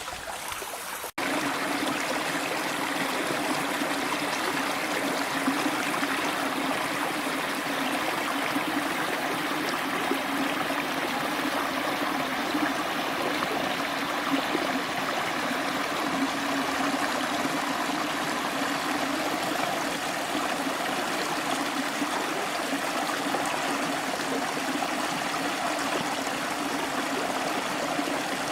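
Steady rush of running water from a small spring-fed stream or waterfall. The sound cuts out for an instant about a second in, then runs on evenly.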